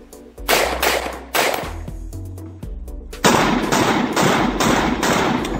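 AR-15 rifle firing through an FS1 muzzle stabilizer/compensator: two single shots a little under a second apart, then a quick string of about six shots at roughly three a second.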